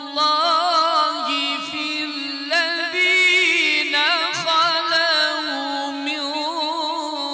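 A man's voice reciting the Qur'an in melodic mujawwad style, drawing out long vowels with rapid ornamental wavering in pitch. The melody steps up higher about three seconds in, then falls back.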